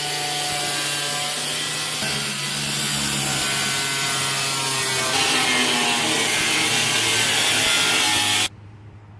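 A power cutting tool runs through the sheet-steel transmission tunnel of a 1965 Impala's floor, making a steady loud cutting noise. Its pitch shifts about two seconds in and again about halfway through, then it stops abruptly near the end.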